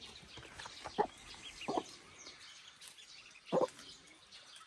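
A mother hen and her ducklings calling: three short clucks about a second in, near two seconds and past three and a half seconds, the last the loudest, over faint high peeping.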